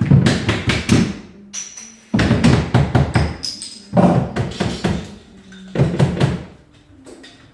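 Rapid hammer blows on wood in four short bursts, knocking wedges out and setting a freshly steam-bent oak rib into a wooden boat hull.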